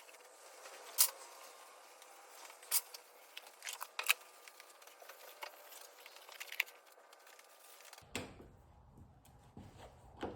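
Faint rustling and scattered sharp clicks and taps from a tack cloth being wiped over birch-plywood shelves. About eight seconds in the background changes suddenly, and a couple of knocks follow.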